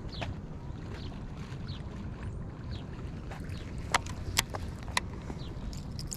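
Steady low wind rumble on the microphone with water lapping against a concrete lake wall. Three sharp clicks come about four to five seconds in, and faint short chirps are scattered through.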